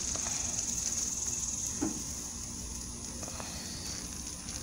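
Insects buzzing steadily in a high, even drone, with a few faint clicks and a soft knock about two seconds in.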